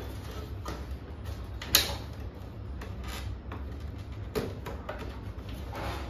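Plastic clicks and creaks from the front grille of a Lloyd split air conditioner's indoor unit as it is pressed and worked loose from its locking clips. One sharp click stands out just under two seconds in, with a smaller one past four seconds.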